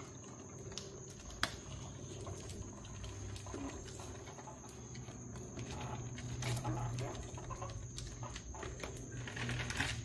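Faint ticks and scratches of a paint marker's tip dabbing along raised tire-sidewall lettering, with one sharper click about a second and a half in, over a steady low background hum.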